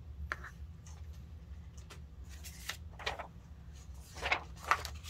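Paper rustling as a printed quick-start guide is handled and leafed through: one short rustle near the start, then several quick rustles in the second half, over a steady low hum.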